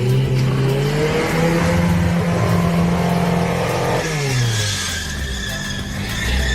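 A motor or engine speeds up, runs at a steady pitch for a few seconds, then winds down about four seconds in.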